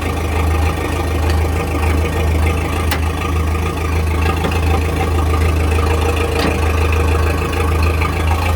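Backhoe engine running steadily with a deep, even rumble, two faint clicks heard over it.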